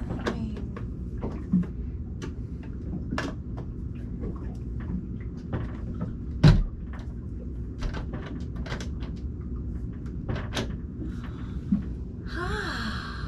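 A small cabinet door being worked open and shut, with a scatter of sharp clicks and knocks from the door and its newly adjusted latch as it is tested; one louder knock about six and a half seconds in. A brief voice sound near the end.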